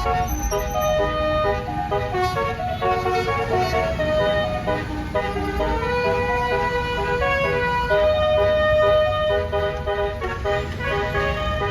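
Basuri multi-note bus air horn playing a tune, several notes sounding together and changing pitch in quick steps, over a steady low rumble.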